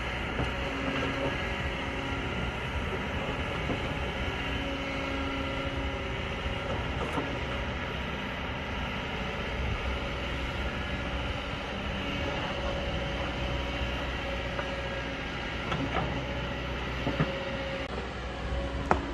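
Kobelco crawler excavator working, its diesel engine and hydraulics running steadily as it digs into a soil and rock hillside, with a pitched tone that comes and goes. A few sharp knocks sound near the end.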